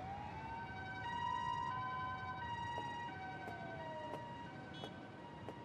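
Ambulance siren: a wail that rises, holds and falls once, sounding together with a two-note hi-lo tone alternating about every half second, slowly fading.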